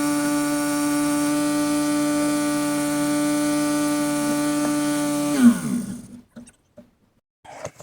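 Portable generator engine running at a steady speed and very loud, then switched off about five and a half seconds in, its pitch falling as it spins down to a stop. A few faint knocks follow near the end.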